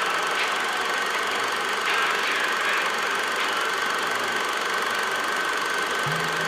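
Steady mechanical whirring of a small motor running, with a constant high whine over it. Music starts just before the end.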